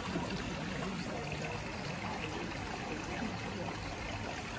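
Water trickling and running steadily in an aquarium tank.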